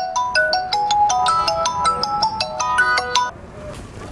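Mobile phone ringtone playing a quick melody of single notes, then stopping about three seconds in: an incoming call that the bike's anti-theft tracker places to the owner's phone when someone tampers with the device.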